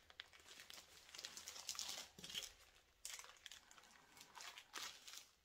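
Faint, irregular crinkling of a gallon zipper-seal plastic bag being pressed by hand to squeeze the air out around a plastic-wrapped dough ball.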